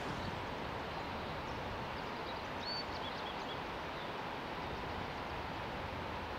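Steady outdoor noise of wind and water, with a few faint short bird chirps about three seconds in.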